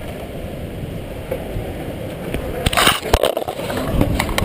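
A steady low rumble on a GoPro lying on the pavement. About two and a half seconds in come loud clunks and scraping as the camera in its housing is grabbed and handled, with a few more knocks near the end.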